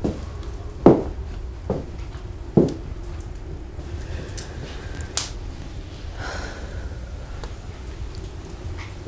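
Three soft footsteps on a wooden floor, a little under a second apart, then a single sharp snap about five seconds in, over a steady low rumble.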